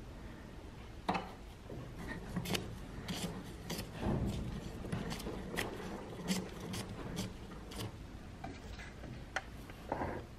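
Small bench vise being worked by hand, its screw handle turned to move the sliding jaw: metal rubbing with a string of irregular sharp metallic clicks.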